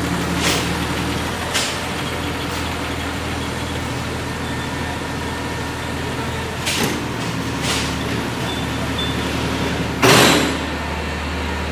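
Crane lorry's engine running steadily, with a few short hisses and one louder rush of noise about ten seconds in.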